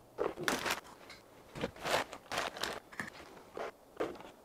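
A string of short, soft knocks and rustles, roughly ten in irregular succession, from ingredients and packaging being handled while almond milk is poured from a carton and fruit pieces go into a portable blender jar.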